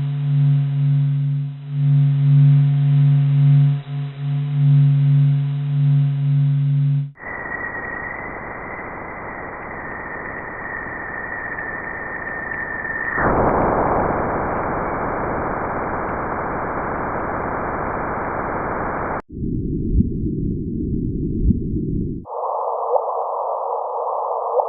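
A sequence of spacecraft recordings of space played as sound. First comes a deep, pulsing hum with several steady tones. About seven seconds in it changes to a hiss with a high steady whistle, which drops out near thirteen seconds, leaving the hiss. Near the end come a lower crackling hiss with a few pops, then a mid-pitched hiss over a steady low tone.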